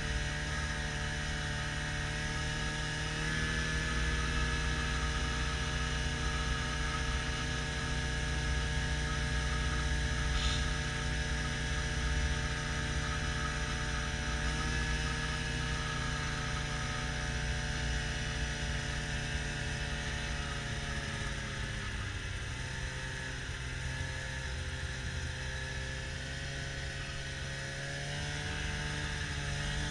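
Arctic Cat Bearcat XT570 snowmobile engine running at a steady cruise, with the track rumbling underneath. About three-quarters of the way through the pitch drops as the throttle eases off, then it climbs again near the end.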